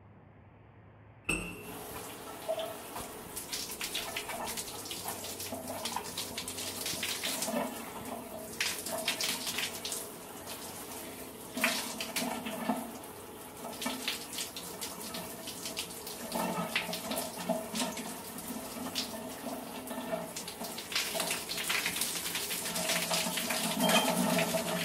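Shower running: water spraying from the showerhead and splashing onto hair and the tub. It comes on suddenly about a second in, then runs steadily with irregular splashes.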